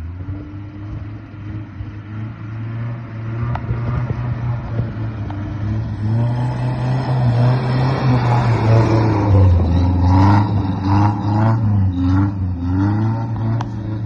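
Lifted pickup truck's engine accelerating toward and past, growing louder to a peak about two-thirds of the way through, then revving up and down in several quick pulls near the end.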